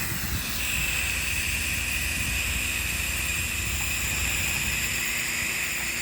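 Soft-wash hose nozzle spraying cleaning solution onto a house: a steady hiss with a high whine in it, over a low rumble.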